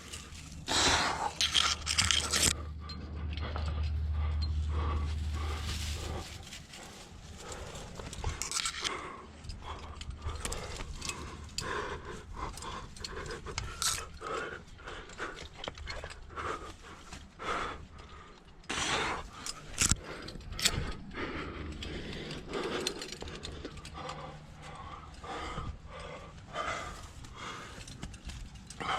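A rock climber's hard breathing, with scraping on rock and the clinking of climbing gear as he moves up a chimney. A low rumble runs for the first few seconds.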